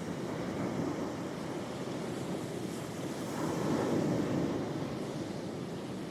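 Sea waves breaking and washing on the shore, a steady rush of surf that swells louder a little past the middle.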